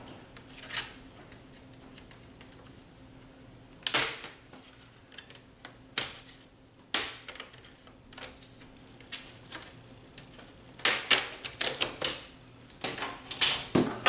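Plastic screen bezel of an HP 15-af013cl laptop being pried off with a scraper: sharp plastic clicks and snaps as its clips pop loose. The clicks are scattered at first, then come quickly, several a second, near the end.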